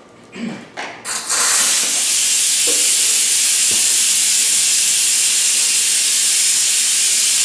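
Air-powered Mityvac vacuum oil extractor: a few clicks as it is set going, then from about a second in a loud, steady hiss of compressed air as it draws a vacuum to suck the used oil out of a small engine.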